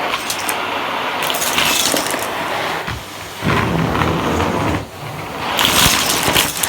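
Vacuum cleaner running, its noise dipping briefly twice, about three and five seconds in.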